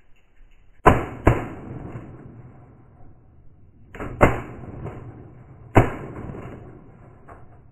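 Five shotgun shots from two shooters: a quick pair about a second in, another pair about four seconds in, then a single shot near six seconds. Each blast rolls off for a second or more.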